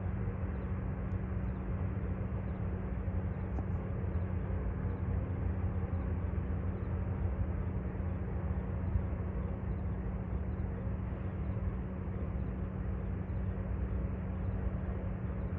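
Union Pacific freight train running, a steady low rumble with a constant hum.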